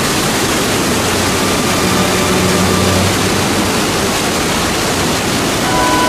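Large waterfall on a mountain river, white water pouring over bare rock ledges in a loud, steady rush.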